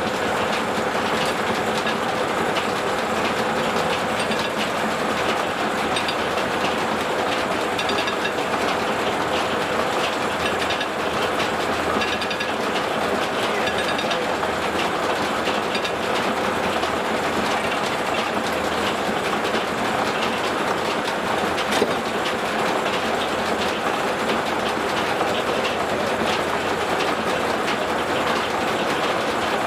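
Steam-powered sawmill machinery running steadily: a continuous mechanical clatter with fast, even ticking and a faint steady hum, and one sharp knock about twenty-two seconds in.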